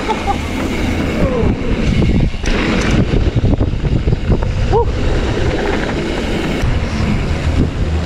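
Mountain bike riding over rough ground: a continuous loud rattle of tyres, chain and frame with wind buffeting the microphone, and a few brief squeaks.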